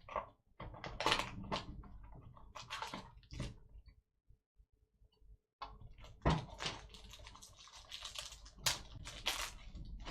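Trading cards being handled: irregular light clicks and rustles as the cards slide against each other. The clicking stops for about a second and a half in the middle, then picks up again.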